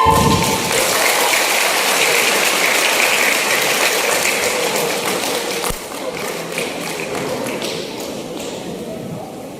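Audience applause breaking out as a choir's final chord ends, a dense crackle of many hands clapping that slowly fades.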